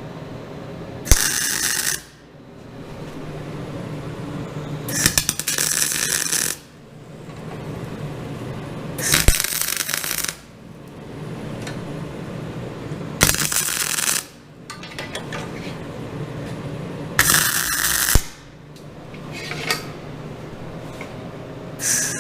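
MIG welder laying tack welds on steel: five crackling, sizzling arcs of about a second each, roughly four seconds apart, with a steady low hum between them.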